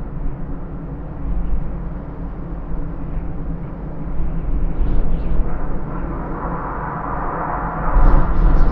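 Cold, tearing wind blowing in gusts, a deep rumbling rush. A gust swells about six seconds in and is loudest near the end.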